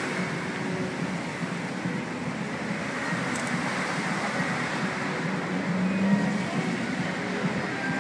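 Steady rushing and hissing of the Bellagio dancing fountain's water jets spraying up and splashing back onto the lake, swelling briefly about six seconds in.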